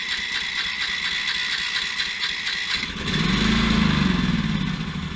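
Predator 420cc single-cylinder engine being turned over by its electric starter, a steady pulsing whir. About three seconds in the engine fires and runs up with a rise and fall in pitch, then fades away.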